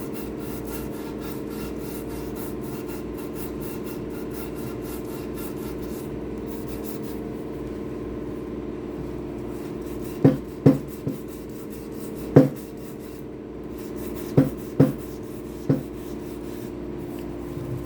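Hand sanding of cured epoxy pour fill with a flexible hard-rubber sanding block: quick, rhythmic rasping strokes. Several sharp knocks, the loudest sounds, come in the second half, all over a steady low hum.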